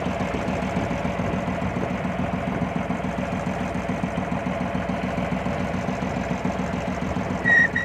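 Engine of a small wooden harbour launch running steadily under way, with a fast, even beat. Near the end a brief high whistle-like tone sounds over it.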